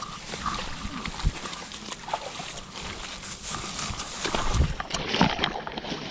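Footsteps crunching and rustling through dry leaf litter and brush, with twigs crackling underfoot, uneven and growing louder about four seconds in.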